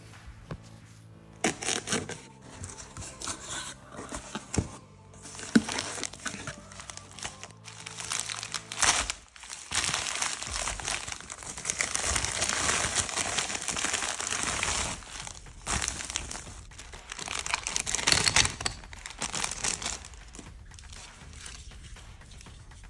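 Plastic shipping bag being crinkled and torn open by hand, loudest and most continuous from about ten to twenty seconds in. Before that, scattered paper rustles and small knocks of packaging being handled.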